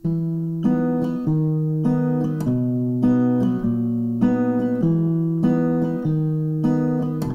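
Acoustic guitar playing the opening of a song, a new chord struck about every 0.6 seconds.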